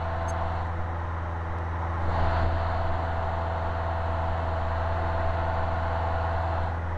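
Steady drone of a 1959 Cessna 150's Continental O-200 four-cylinder engine and propeller in level flight, heard inside the cabin at slightly reduced power, with a brief slight swell about two seconds in.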